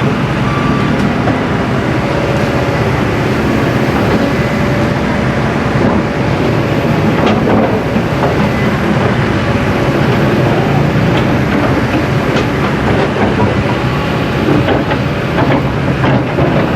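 Steady, loud engine rumble with a rushing noise over it and a few faint clicks.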